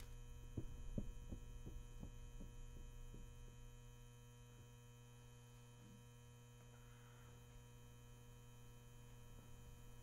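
Low, steady electrical hum with a faint room tone. In the first few seconds a run of faint ticks, about three a second, dies away.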